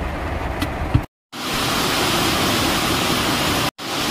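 Heavy rain pouring down as a steady, loud hiss. It is preceded in the first second by the low rumble of the car, and broken by two brief dropouts, about a second in and near the end.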